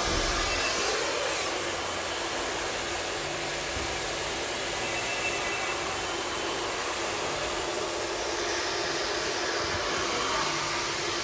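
Handheld hair dryer running steadily, a continuous rush of air, as a stylist blow-dries long hair over a round brush.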